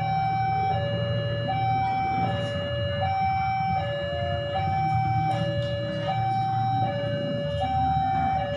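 Railway level-crossing warning alarm sounding a repeating two-tone high-low signal, each note a little under a second, over a low steady rumble: the crossing is closed for an approaching train.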